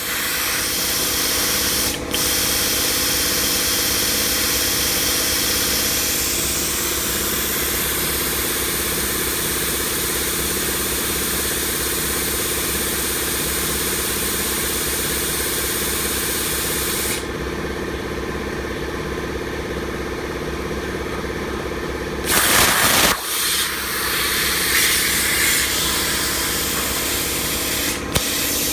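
Razorweld 45 plasma cutter cutting 16-gauge sheet at about 32 amps: a steady hiss of air and arc over a low hum. About two-thirds through, the high hiss drops away for about five seconds, then returns with a loud burst. There is a brief break about two seconds in and another near the end.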